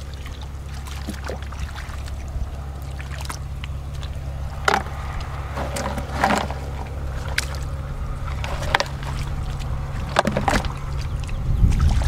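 Hands splashing and scooping in shallow muddy water, with a few sharper splashes about five, six and ten seconds in, over a steady low rumble of wind on the microphone.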